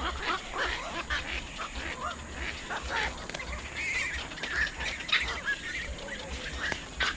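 A group of waterbirds calling: many short, overlapping squawks and honks.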